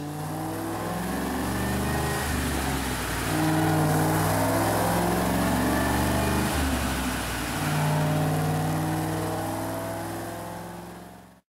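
2007 Shelby GT500's supercharged 5.4-litre V8, fitted with a VMP TVS supercharger, running on a chassis dyno at part throttle, its speed held steady and then stepping up and down a few times. The sound fades out near the end.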